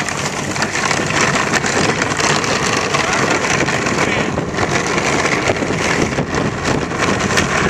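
Pickup truck driving along a sandy dirt road, heard from its bed: a steady rush of tyre and grit noise with a low engine hum beneath and scattered small crackles.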